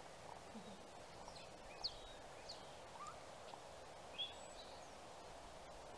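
Scattered short bird chirps, each sliding up or down in pitch, over a steady quiet background hiss; the loudest chirps come a couple of seconds in and again about four seconds in.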